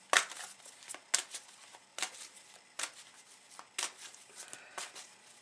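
A deck of Romance Angels oracle cards being shuffled by hand, with sharp card snaps about once a second and softer riffling between.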